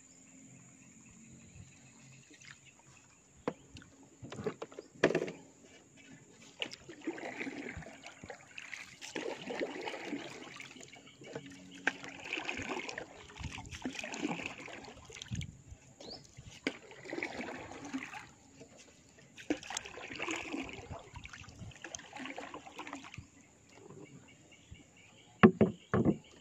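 Small boat being paddled along a river: a swish and gurgle of the paddle in the water every two to three seconds, with a few sharp knocks, the loudest near the end.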